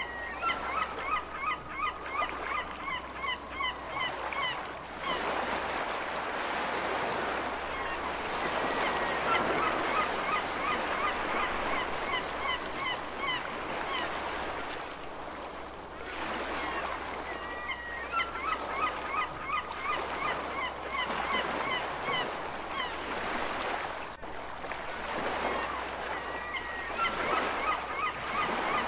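Gulls calling in bouts of quick, repeated cries, a new bout about every nine seconds, over a steady wash of ocean waves.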